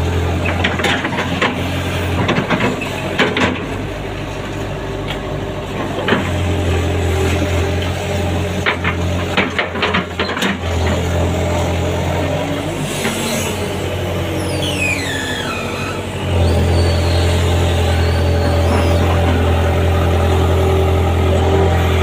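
Hydraulic excavator at work: its diesel engine runs steadily while the bucket digs, with repeated knocks and clanks of metal and soil. Near the middle there is a falling squeal, and about three quarters of the way through the engine sound gets louder and stays steady.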